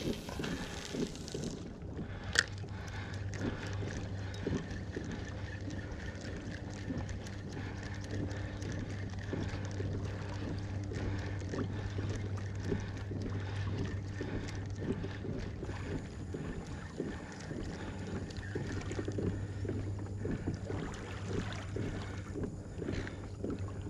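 Water lapping and slapping against a kayak hull, with many small irregular ticks and light wind on the microphone over a steady low hum. A single sharp click or splash stands out about two seconds in.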